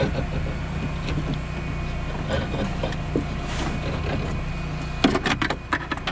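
Wires and plastic parts being handled inside a car door: light rustling and ticks, with a quick run of clicks about five seconds in, over a steady low hum.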